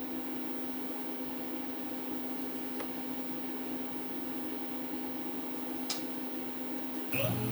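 Steady hum and fan-like hiss of a CNC milling machine standing powered up, with a couple of faint clicks.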